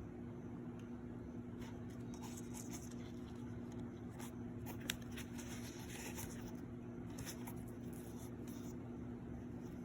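Faint rustling and light handling noises of a sneaker unboxing, with one sharp click about five seconds in, over a steady low hum.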